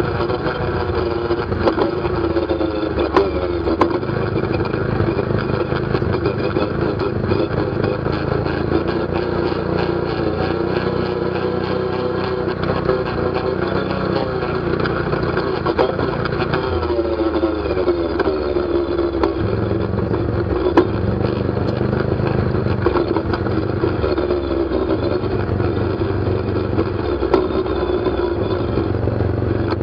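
ATV engine running while riding, its pitch rising and falling with the throttle, with scattered knocks and rattles.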